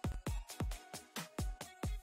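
Background electronic dance music with a heavy, fast kick-drum beat over sustained synth tones.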